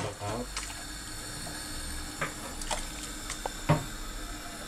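Pot of boiling water with freshly added rice hissing steadily on the stove, with a few light clicks and knocks of utensils.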